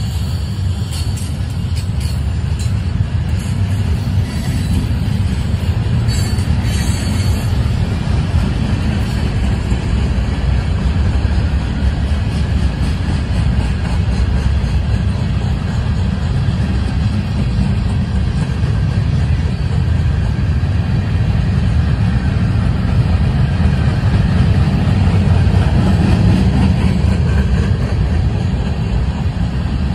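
Freight cars of a passing train rolling by: a steady, unbroken rumble of steel wheels on the rails, with a few faint clicks in the first several seconds.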